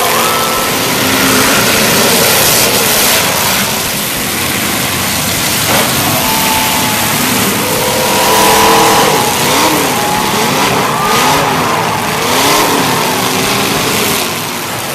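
Several demolition derby cars' engines revving up and down at once over a steady noisy roar, their pitches rising and falling, busiest in the second half.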